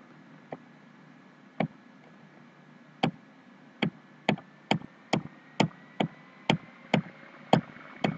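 Computer mouse clicking about a dozen times: sharp single clicks, sparse at first and then roughly two a second from about three seconds in.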